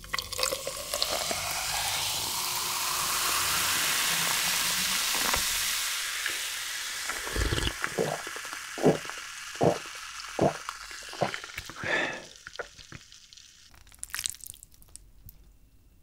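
Cola poured from a plastic bottle over ice into a glass jar, fizzing loudly, with a tone that rises as the jar fills. The fizz then dies down and about five gulps of the cola follow.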